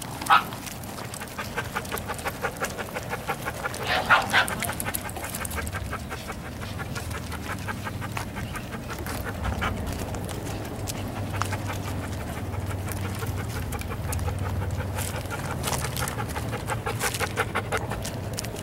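Dogs panting rapidly and steadily, with a brief bark just after the start and another about four seconds in.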